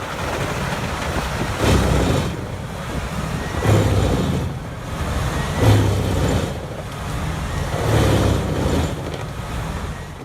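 Heavy machinery running loudly, the noise swelling in heavy surges about every two seconds.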